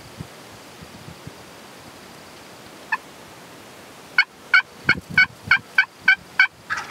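Turkey yelping: one short yelp about three seconds in, then a quick, even series of about eight yelps, three or four a second, with another call starting near the end.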